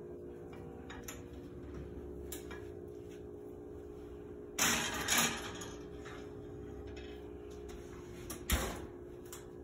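Steady appliance hum in a kitchen, broken by a couple of short clatters about five seconds in and a sharp knock near the end, as a metal sheet pan of vegetables is handled.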